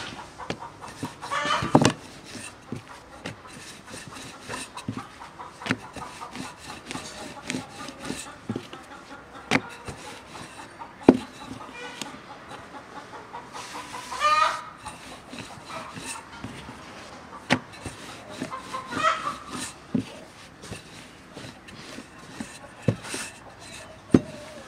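Chickens calling a few times, with a longer call about halfway through, over scattered sharp knocks and clicks.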